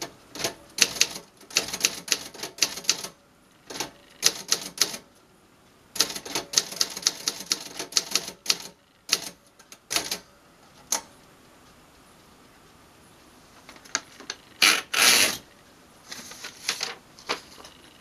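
A 1949 Remington portable manual typewriter being typed on: sharp key clacks in quick runs with short pauses between them, then a few single strikes. After a quiet stretch comes one louder, longer rasp as the sheet is drawn out of the platen, followed by a few more clicks.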